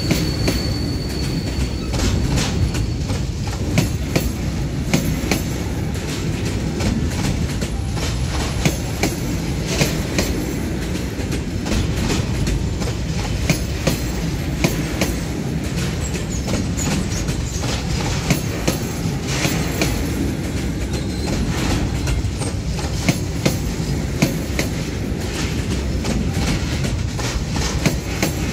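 Freight train of covered wagons rolling past: a steady low rumble of wheels on rail with frequent sharp clacks, and a high wheel squeal that fades out in the first couple of seconds.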